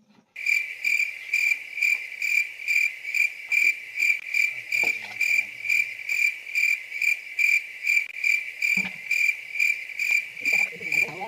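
Cricket chirping steadily, a loud high-pitched chirp repeated about twice a second, starting abruptly.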